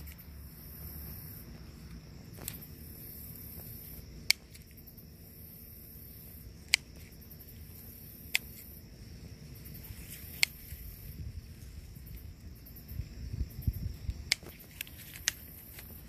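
Scissors snipping through tough marjoram stems: single sharp snips every couple of seconds, coming quicker near the end, with some low handling noise in between.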